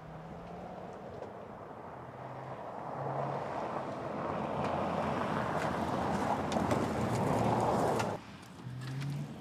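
Mercedes GLC SUV driving fast on a loose gravel track, its tyres crunching and scattering stones over a low engine note. The sound grows steadily louder as the car approaches and cuts off abruptly near the end.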